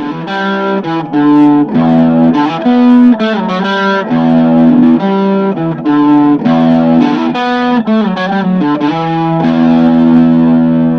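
Outro music: distorted electric guitar playing a riff of changing notes, settling into a held chord near the end.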